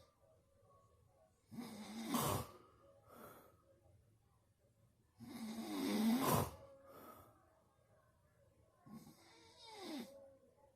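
Really loud snoring: three snores, one every three to four seconds, each followed by a shorter, softer breath; the first two are the loudest and the third, near the end, is weaker with a falling pitch.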